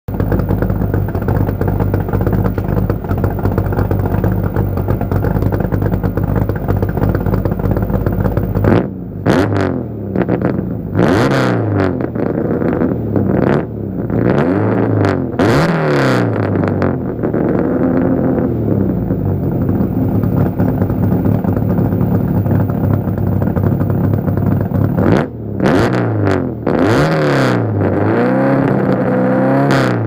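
Ford 5.0 L (302) V8 with 180-degree headers and true dual exhaust without an X-pipe, idling steadily and then blipped up and down over and over from about nine seconds in, with one longer held rev near the middle and a quick cluster of blips late on. It has an odd, uneven note that the owner likens to a heavily modified old air-cooled VW Beetle engine. He puts this down to the two megaphone tailpipe outlets sitting far apart, which makes the two cylinder banks sound separate.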